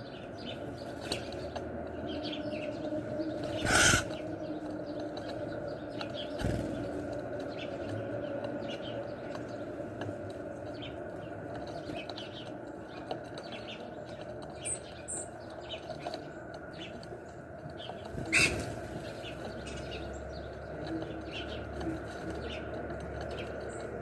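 Birds chirping with many short, sharp calls, broken twice by a loud burst of wing flaps as birds take off, about four seconds in and again about eighteen seconds in. A steady low hum runs underneath.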